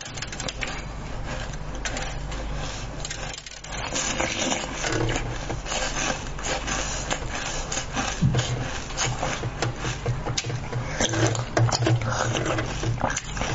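Close-miked chewing and mouth sounds of someone eating a soft bun-shaped dumpling, with many small wet clicks and smacks throughout.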